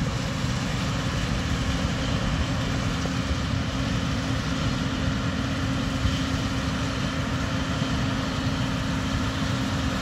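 Case IH combine harvesting soybeans, its engine and threshing machinery running steadily with an even hum.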